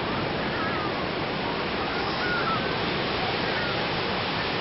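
Steady wash of sea waves on a beach, with a few faint, distant high voices over it.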